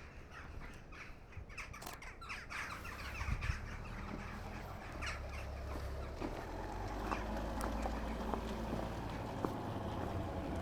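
Birds calling: a quick run of short, falling calls over the first few seconds, then a low steady hum joins about five seconds in.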